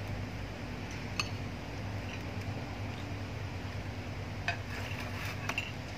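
A metal spoon clinking against a ceramic plate of rice, once about a second in and twice near the end, over a steady low hum.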